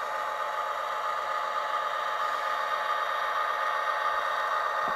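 Tsunami sound decoder in a Kato SD90MAC model locomotive playing a diesel engine sound through the model's small on-board speaker: a steady engine drone with a constant whine, as the model runs along the track.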